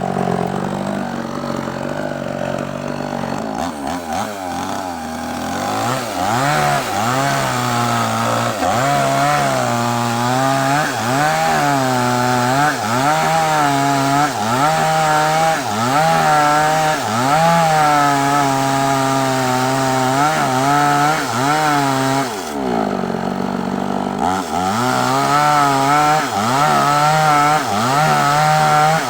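Two-stroke chainsaw idling at first, then opened up and cutting through a large sengon log, its engine speed rising and sagging again and again as the chain bites into the wood. About three-quarters through, the revs fall away briefly, then climb back up as the cut resumes.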